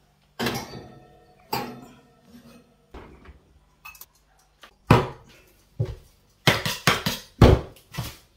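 Clanks as a glass baking dish is set onto a gas oven's rack and the oven door is shut. Then comes a run of heavy knocks and thuds on a kitchen table, loudest in the last few seconds.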